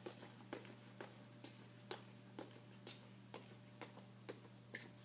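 Faint footsteps of sandals on a concrete floor, even clicks about two a second, over a low steady electrical hum.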